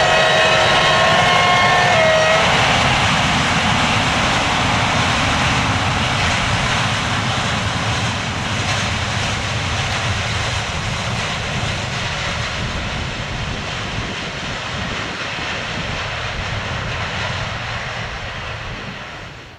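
A freight train hauled by MBC Ge 4/4 electric locomotives passes: a loud, steady rumble of wheels, wagons and motors that slowly fades as the train draws away. Several held tones sound together for about the first two seconds, one of them rising just before they stop.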